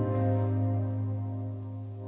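Background music ending on a long held chord that slowly fades out.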